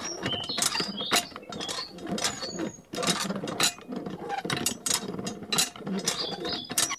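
Handmade miniature hand pump being worked by its handle: rapid, irregular clicking and creaking from the handle and plunger, with water trickling from the spout into a tank.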